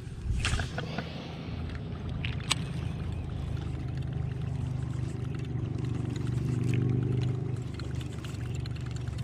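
Steady low motor hum from a bass boat, with water lapping at the hull; the hum swells about six to seven seconds in. A brief swish comes near the start and a sharp click a couple of seconds later.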